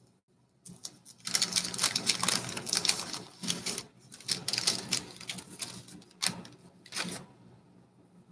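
Paper wrapper of a baseball card pack crinkling and tearing as the pack is opened: a dense crackle of many small snaps lasting about six seconds, with a few sharper snaps near the end.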